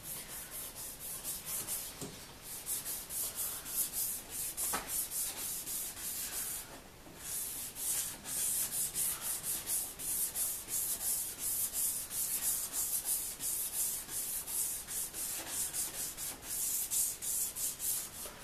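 Abrasive polishing pad (step two of a Rain-X headlight restoration kit) rubbed by hand over a lubricated plastic headlight lens in quick back-and-forth linear strokes, a few a second, with a brief pause about seven seconds in. This is wet sanding to take the yellowing off the lens.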